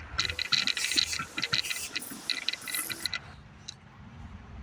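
Rapid rattling clicks that stop about three seconds in, leaving a faint low rumble.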